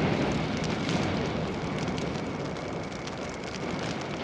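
Flame jet from a tank-mounted flamethrower: a steady rushing roar of burning napalm with a light crackle, easing off slightly toward the end.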